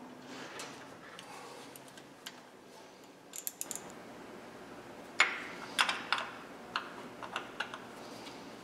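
Small metal clicks and taps of hand tools and bolts while coil pack bolts are refitted on a Subaru engine. A quick run of light clicks comes a little past three seconds in, then a handful of sharper single clicks over the next two and a half seconds.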